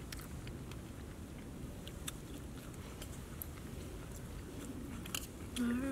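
Quiet chewing and biting of food, with scattered light clicks of metal chopsticks against dishes over a low steady outdoor rumble. A short steady hum comes in near the end.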